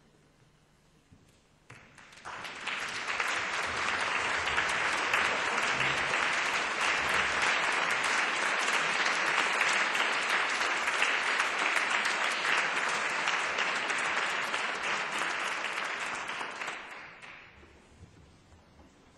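Concert hall audience applauding. It breaks out about two seconds in, holds steady, then dies away near the end.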